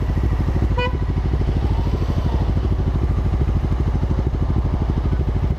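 Honda CB500 parallel-twin motorcycle engine running steadily at low revs, its firing pulses even and unchanging. A short beep sounds about a second in.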